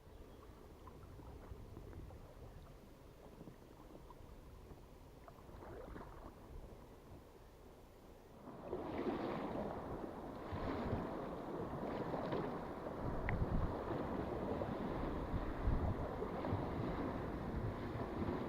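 Paddling an inflatable canoe on a river: water splashing and sloshing with repeated paddle strokes, and wind buffeting the microphone. It gets noticeably louder about eight seconds in.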